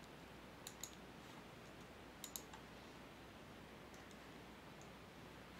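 Faint computer mouse clicks over near silence, including two quick double-clicks as a folder is opened.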